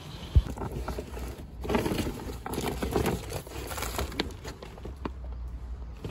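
Handling noises: a plastic bag rustling and crinkling, with a single knock about half a second in and a few small clicks and taps later.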